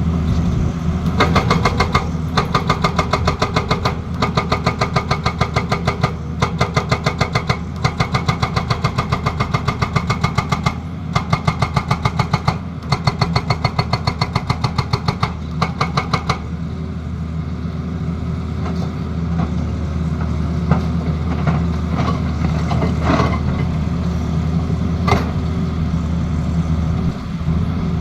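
Excavator-mounted hydraulic breaker hammering in rapid, regular blows, about eight to ten a second, in runs broken by short pauses. This sits over the steady running of the Tata Hitachi excavator's diesel engine. About halfway through, the hammering stops and the engine runs on alone, with a few single knocks.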